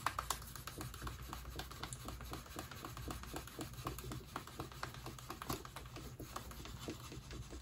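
A wooden hand burnisher rubbed quickly back and forth along the water-dampened edge of a piece of tooling leather, a faint run of many short scraping strokes, as the edge is burnished smooth. A low steady hum sits under it.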